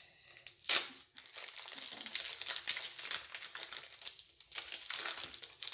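Foil wrapper of a Pokémon booster pack crinkling as it is opened by hand and the cards are pulled out, with a loud crackle just under a second in.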